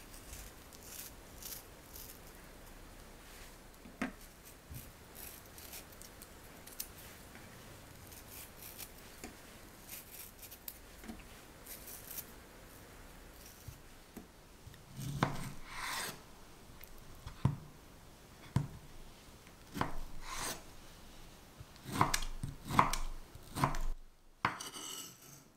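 A ceramic knife peeling the fuzzy skin off a green kiwi with faint, soft scraping strokes. From about fifteen seconds in come louder knife cuts through the soft flesh, knocking on a wooden cutting board.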